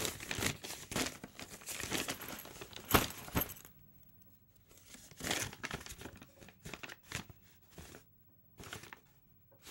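Paper rustling and crinkling in short irregular crackles as a sheet of paper is handled, pausing about halfway through before a few more scattered crackles.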